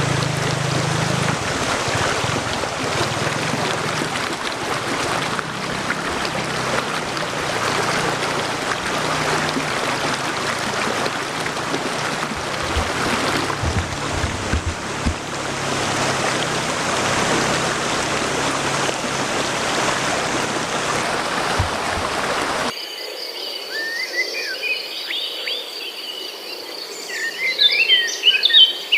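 A steady rushing noise fills most of the clip. It cuts off abruptly near the end, giving way to birds chirping over a steady high insect trill.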